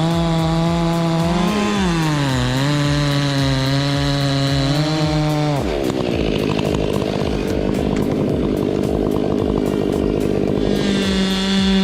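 Chainsaw engine running at high revs while cutting. Its pitch sags and recovers a couple of times in the first half, then the sound changes abruptly about halfway through and the engine holds a steady pitch.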